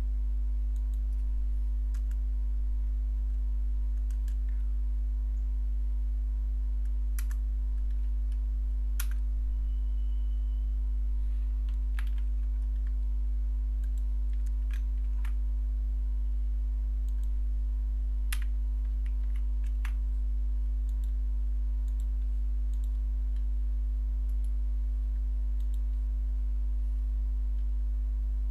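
Scattered computer keystrokes and clicks, a second or more apart, over a steady low hum.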